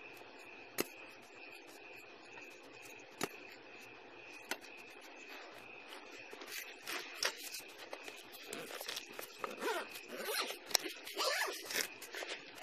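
Clothing or gear rubbing and scraping against a body-worn camera. There are a few sharp clicks in the first half, then louder, irregular rustling from about halfway in, over a faint steady high-pitched tone.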